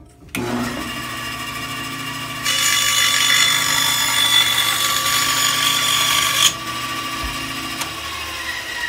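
Bandsaw starting up and running, then cutting through a wooden board for about four seconds, which is louder and noisier than the free running. Near the end it runs free again and winds down with a falling whine as it is switched off.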